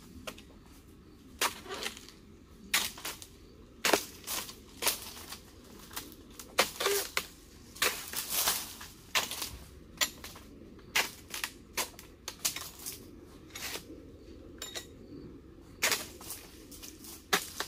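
Sharp chops of a dodos, a long-handled palm chisel, cutting into the frond stalks of a young oil palm to prune its lower fronds. The blows come irregularly, about one a second, with a longer ragged stroke about eight seconds in.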